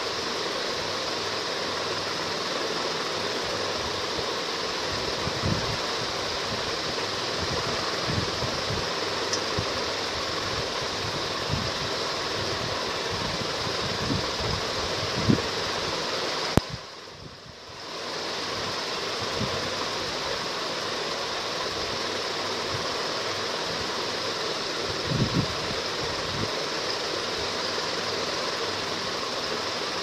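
Steady rushing room noise with scattered soft low knocks. Just past halfway a sharp knock is followed by the noise cutting out for about a second before it fades back in.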